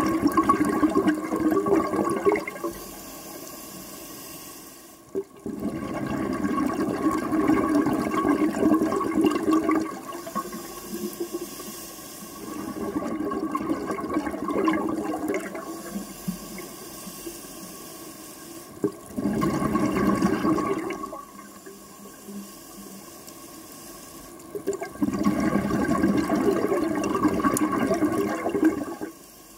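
Scuba diver breathing through a regulator underwater: five long rushes of exhaled bubbles a few seconds apart, with quieter stretches of inhaling between them.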